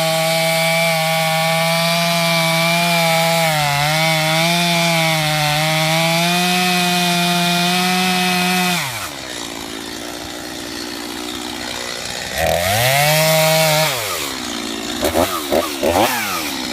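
Stihl MS 250 two-stroke chainsaw held at high revs, its pitch sagging a few times as it cuts into wood, then dropping to idle about nine seconds in. A few seconds later it is revved up once briefly, and near the end it is blipped several times in quick succession.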